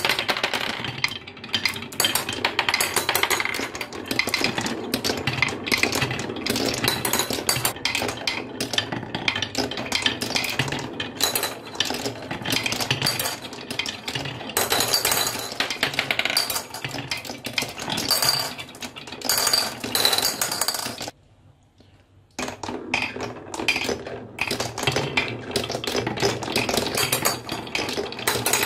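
Glass marbles rolling and rattling along the wooden tracks of a HABA marble run, with many sharp clinks as they hit joints, rails and the drop holes. The run goes quiet for about a second a little past two-thirds of the way through, then the rolling starts again.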